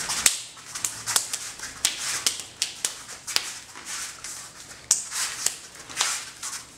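Forearms and hands slapping and brushing against each other in a run of quick, irregular strikes, with sleeves swishing, as two people practise Wing Chun chi sao (sticking hands) techniques.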